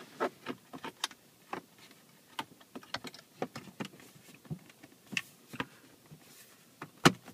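Scattered clicks and knocks of a fiberglass dash kit and the plastic dash trim around it being handled and pushed back into place in a 2010 Mazda 3's centre dash, with two sharper knocks near the end.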